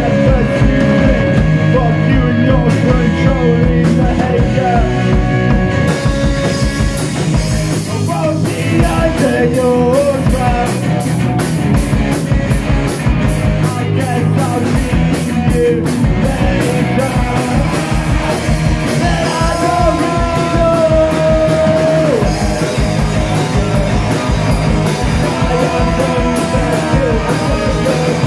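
A punk rock band playing live: electric guitars, bass guitar and drum kit at a steady beat, with a singer now and then. The cymbals come in about six seconds in.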